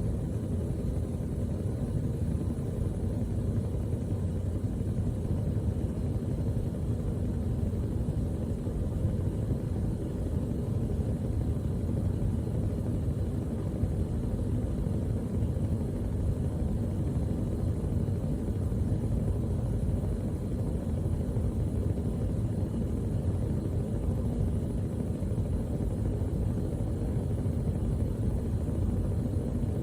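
Gas stove burner flame burning steadily with a low, even rumble.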